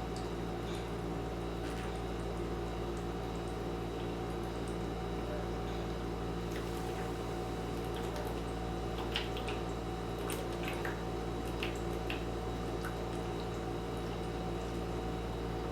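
Steady electrical hum with several fixed low tones, under faint scattered clicks and small liquid sounds from carbonated Pepsi being drunk.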